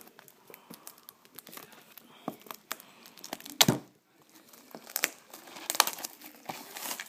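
Plastic shrink wrap on a sealed trading-card hobby box crinkling and crackling in short irregular bursts as fingers pick at it to break the seal, with one sharp, louder crackle about three and a half seconds in.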